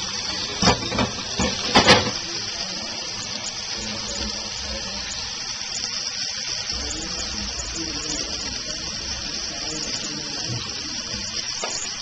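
Kitchen faucet running steadily into the sink. A few sharp knocks come in the first two seconds, the loudest near the two-second mark.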